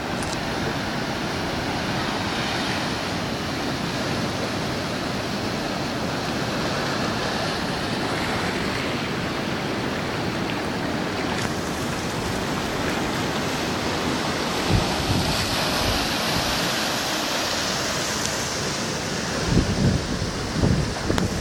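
Ocean surf washing steadily, heard with wind on the microphone; low gusts buffet the microphone near the end.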